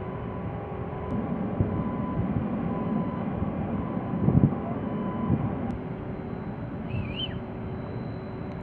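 Container port ambience: a steady low rumble with a faint machinery hum of a few held tones, broken by gusts of wind on the microphone, loudest about four seconds in. A short warbling chirp sounds about seven seconds in.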